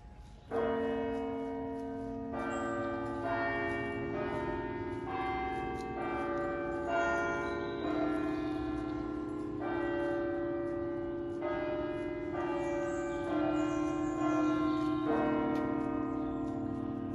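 Tower clock bells chiming the time: a run of single bell strokes on several different notes, roughly one a second with a few pauses, each note ringing on under the next. The first stroke comes about half a second in.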